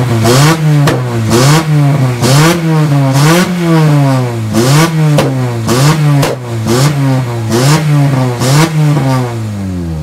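Acura RSX four-cylinder engine revved hard over and over, about once a second, each rev rising and dropping quickly with a sharp crack at its peak. The onlookers take the sound for rod knock.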